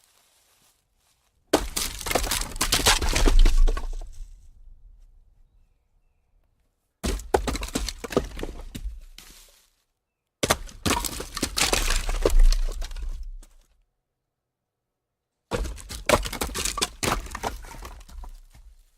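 Light wooden logs rolling down a small slope, knocking and clattering against each other, four separate times. Each run starts sharply and trails off over two or three seconds.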